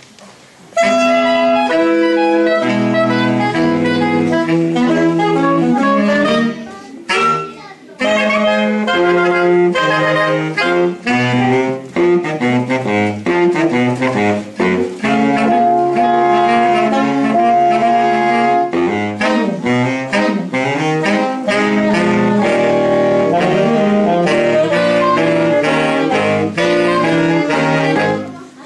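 Saxophone quartet, a soprano saxophone among them, playing a jazz tune in several parts at once. The playing starts about a second in and breaks off briefly around seven seconds before going on.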